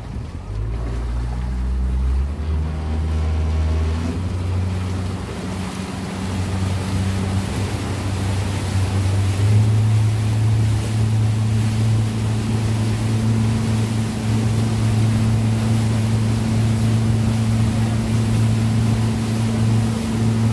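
Motorboat engine running under way, its pitch stepping up a few times over the first ten seconds as the boat gathers speed, then holding steady. Water rushing past the hull and wind on the microphone run underneath.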